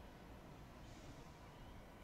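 Near silence: a faint low outdoor rumble.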